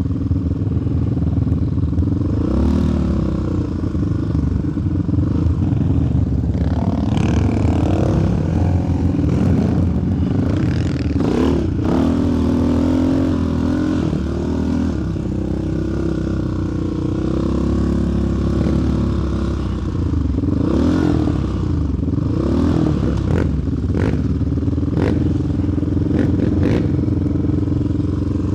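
Sport quad's single-cylinder engine running as it is ridden over a trail, the revs rising and falling several times, with a few sharp knocks and clatter, most of them near the end.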